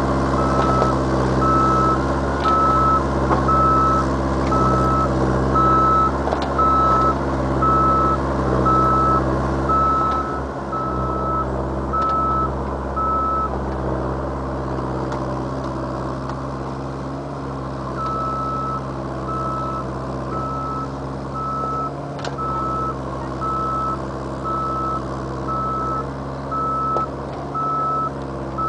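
Mini excavator's diesel engine running steadily with its travel alarm beeping about one and a half times a second, the sign that the machine is tracking. The beeping stops for about four seconds around the middle, then starts again.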